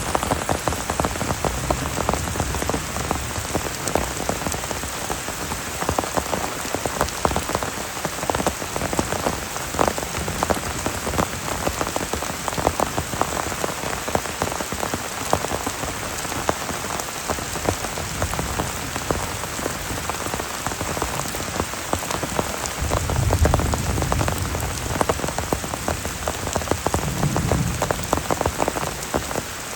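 Heavy rain falling, a dense steady patter of drops hitting a surface. There are brief low rumbles about two-thirds of the way in and again near the end.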